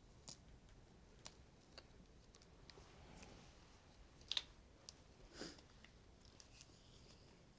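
Near silence: quiet room tone with a few faint, sharp clicks, the loudest about four and a half seconds in, and a short soft rustle about a second later.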